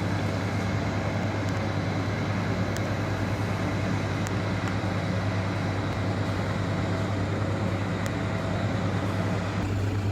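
An engine running steadily with a strong low hum, and a few faint clicks.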